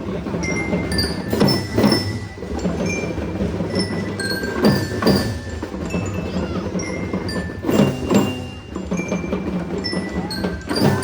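Children's drum band playing: a melody of short ringing bell notes, like a marching glockenspiel, over a steady low sustained tone, with several louder drum strikes in pairs.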